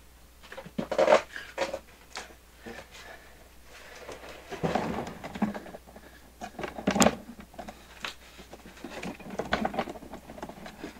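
Scattered rustling and knocks from someone getting up and moving about off-camera, handling things, with a sharp knock about seven seconds in.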